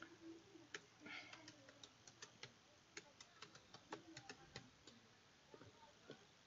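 Faint keystrokes on a computer keyboard as a password is typed: a quick, irregular run of about twenty light clicks over some four seconds, then a couple of stray clicks near the end.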